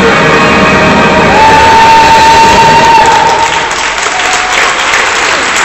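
Rock backing music for a gymnastics floor routine ending on a long held note. About four seconds in, applause and cheering from the audience take over.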